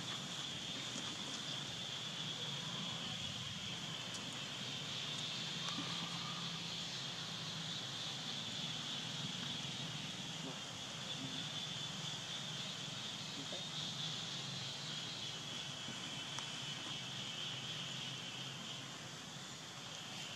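Steady high-pitched drone of insects calling, over faint outdoor ambience.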